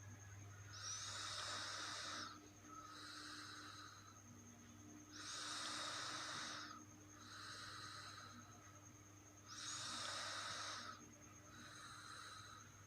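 Snoring: slow, noisy sleep breathing, about one breath every four seconds. Each breath is a louder hissing breath followed by a softer one, three in a row.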